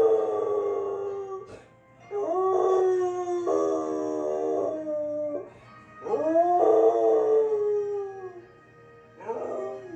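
A Samoyed howling along to music from the television: a run of long, drawn-out howls with short breaks between them, the last one brief.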